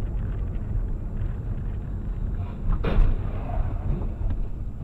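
Steady low road and engine rumble heard from inside a moving car, with one sharp thump about three seconds in.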